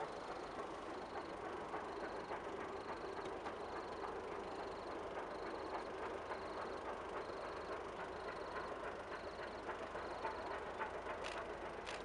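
Rovos Rail's class 19D steam locomotive heard at a distance as it approaches with its train: a steady rumble with faint exhaust beats, and a few sharper cracks near the end. A high chirp repeats about every 0.7 seconds throughout.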